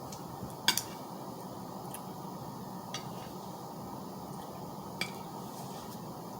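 An eating utensil clinking lightly against a dish a few times while food is eaten: a quick double clink near the start, the loudest, then single clinks about three and five seconds in, over a steady hiss.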